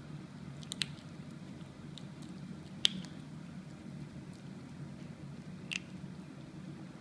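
Two young kittens chewing and crunching dry kibble, with three sharp clicks, the loudest about three seconds in, over a steady low hum.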